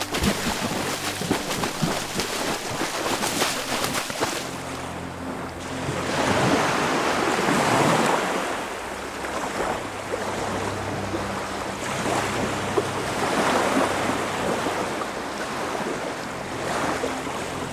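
Baltic Sea waves washing onto a rocky shore, starting suddenly with crackling splashes, then surging louder about six seconds in and again around thirteen seconds before ebbing.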